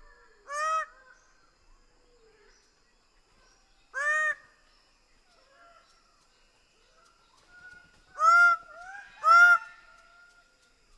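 Greater bird-of-paradise calling: four loud, short, harsh notes that each rise and fall in pitch, one about a second in, one about four seconds in, and two close together near the end. Softer bird calls sound faintly underneath.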